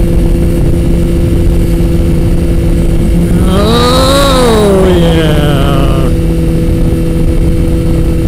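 Kawasaki ZX-14R motorcycle engine running at a steady cruise, with wind rumble on the microphone. About three seconds in, a separate pitched sound rises and falls in pitch over roughly two seconds.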